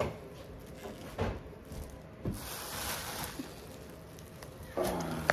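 A plastic bag crinkling as a saucy seafood boil of shrimp, corn and potatoes is tipped out of it into an aluminium foil pan, with a few soft wet knocks as the food lands.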